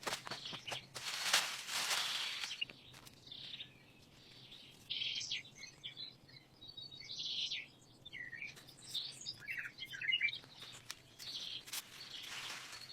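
Small birds chirping in short, high calls, many in a row. There are stretches of rustling noise at the start and again near the end.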